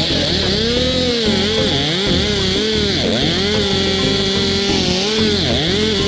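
Two-stroke chainsaw running at high revs while cutting into a maple trunk, its pitch dipping and recovering every second or so as the chain bites into the wood.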